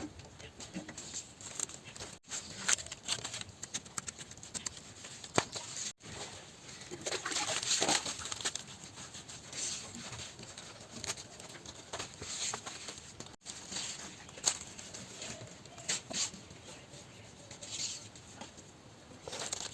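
Scattered rustling and crinkling with light clicks and taps, as of materials being handled, broken now and then by abrupt cuts.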